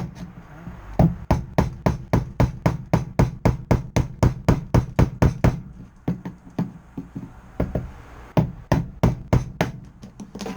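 Hammer blows on a chisel in a quick, steady rhythm of about three a second, chipping hard old bitumen insulation off a steel car floor pan. The blows thin out for a couple of seconds past the middle, then pick up again.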